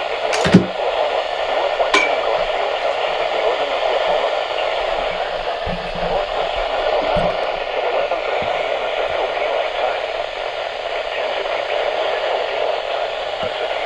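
Weather radio receiver hissing with steady static on a weak NOAA Weather Radio signal, with two sharp crackles about half a second and two seconds in.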